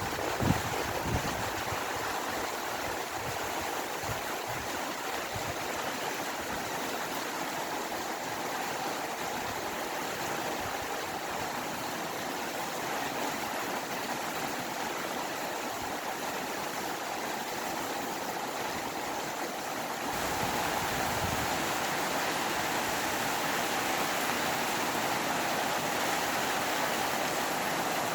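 Steady rain with wind: an even rushing hiss, with a few low rumbles in the first seconds. It steps up a little louder about twenty seconds in.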